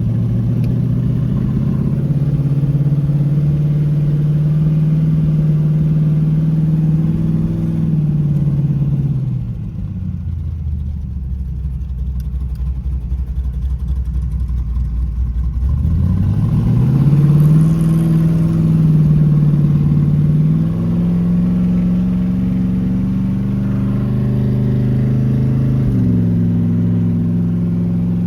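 Chevy Vega wagon's V8 engine running under way: it drops to a low idle about nine seconds in, holds there for several seconds, then picks up again around sixteen seconds, with two further steps in pitch near the end.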